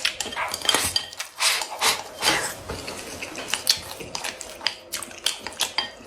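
Eating utensils clinking and scraping against a bowl of rice in a quick, irregular run of short knocks and scrapes, as the food is scooped up.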